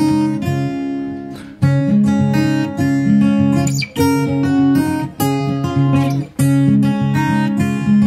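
Background music played on acoustic guitar, a run of plucked notes and chords with short breaks between phrases.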